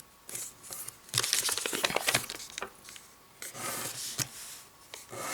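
Origami paper crinkling and rustling in the hands as it is folded and creased, in three bursts of about a second each with quiet gaps between.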